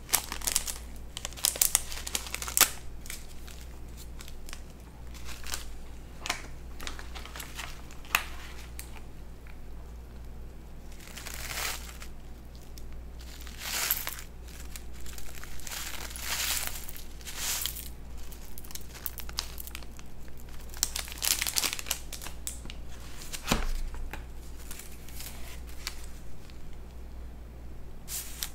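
Food packaging crinkling and rustling in irregular bursts, with sharp crackles, as wrappers are handled and crumpled.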